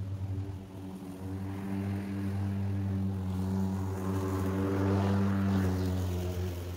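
Hart 40V battery-powered lawn mower running as it cuts grass, a steady hum that grows louder about four seconds in as it passes close, then eases off near the end.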